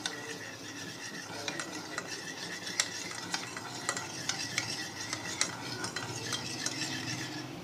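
A spoon stirring a tablespoon of milk into orange food colour, with light irregular clinks against the dish over a steady hiss.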